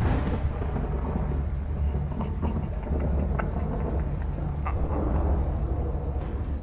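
Dark, low rumbling drone from a horror film's sound design, with scattered faint crackles and clicks over it. It opens with a sudden hit and begins to fade near the end.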